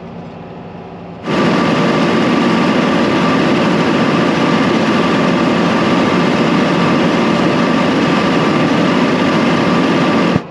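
John Deere 4755 tractor pulling a field sprayer across stubble. First a quieter steady hum from inside the cab, then, about a second in, the sound jumps to a loud, steady engine-and-running noise heard from outside by the tyre, with a steady whine through it. It cuts off suddenly near the end.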